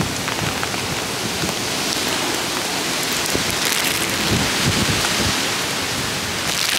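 Heavy hurricane rain pouring steadily as an even hiss, with low gusty rumbles about four to five seconds in.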